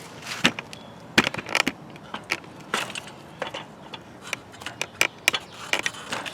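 Irregular clicks and knocks as a bicycle wheel is handled and fitted back into the frame, with the sharpest knocks about half a second and a second in.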